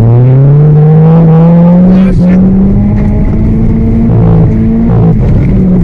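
Car engine running hard at high revs, its pitch climbing over the first second and then held, with brief dips about two seconds in and again near the end as the throttle eases and comes back.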